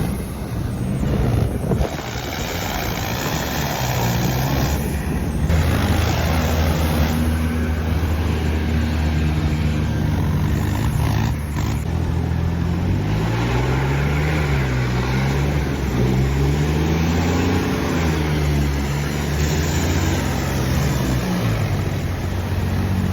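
Heavy diesel engines of a tractor and bulldozer working in mud, running loud and continuous under load. One holds a fairly steady note while another rises and falls in pitch several times as it is revved, mostly in the second half.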